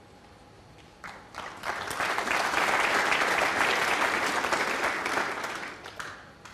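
Snooker audience applauding a shot: the clapping starts about a second in, swells quickly, holds, then dies away near the end.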